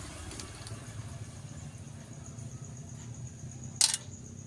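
A vehicle engine idling with a steady low hum, and one short sharp clack about four seconds in.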